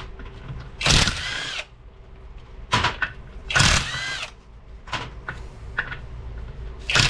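Cordless power driver with a 9/16 socket spinning bolts out of a transfer case bearing retainer in three short trigger bursts. Each burst speeds up and then winds down, with a few sharp metal clicks between them.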